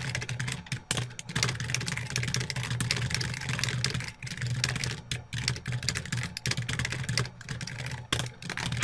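Fast typing on a computer keyboard: a dense, continuous run of key clicks with a few brief pauses, over a low steady hum.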